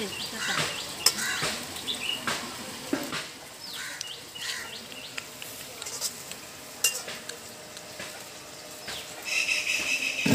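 A metal utensil stirring and clinking in a pan of jackfruit pieces frying in oil, with scattered sharp clinks over a low sizzle.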